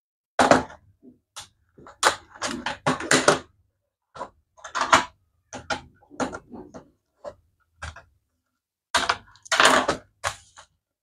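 Plastic clicks and knocks of a ThinkPad T470 laptop being handled and its removable rear battery unlatched and pulled out, with the case knocking on a wooden bench. The clicks come in irregular clusters, the busiest about two to three and a half seconds in and again near the end.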